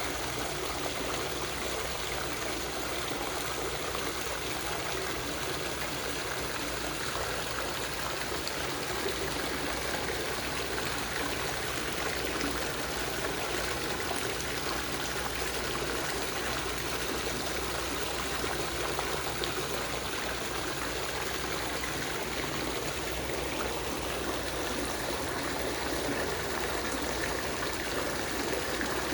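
Water fountain running, water splashing and trickling steadily.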